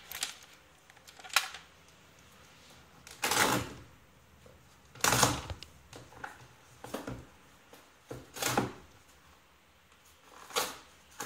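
A sealed cardboard shipping box being opened by hand: about seven separate scrapes and rustles of cardboard and packaging, two of them longer near the middle.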